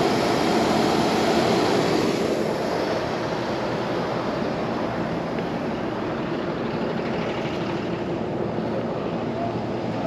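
1966 Ford Mustang idling smoothly on its factory exhaust, not shaking or missing, heard as a steady, even rush of noise.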